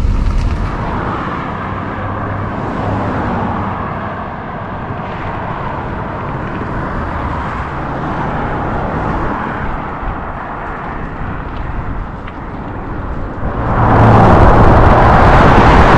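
Outdoor roadside noise: a steady rush of road traffic and wind that swells much louder about fourteen seconds in.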